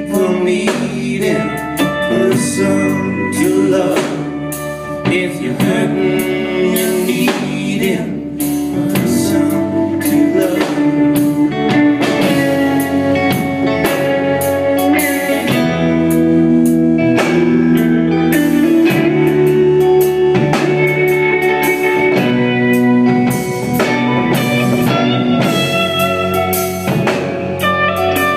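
A live country band playing: electric guitars over a drum kit, with a steady beat throughout.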